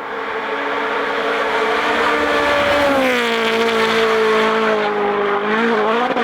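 Rally car engine at full throttle, growing louder as the car approaches. About halfway through the engine note drops, then dips and picks up again near the end.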